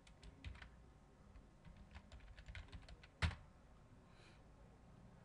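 Typing on a computer keyboard while a password is entered to log on to Windows: a few separate keystrokes, then a quick run of them, ending in one sharp, louder key press a little over three seconds in.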